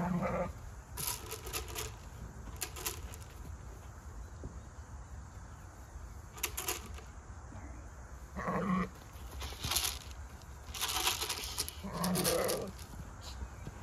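Suffolk ram bleating three times: a short call at the start, another about eight and a half seconds in and a longer one about twelve seconds in. Short rustles and scuffs come between the calls.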